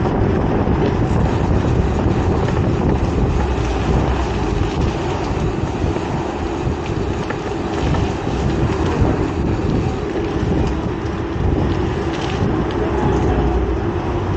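Wind buffeting an action camera's microphone during a bicycle ride, over a steady rumble of road traffic.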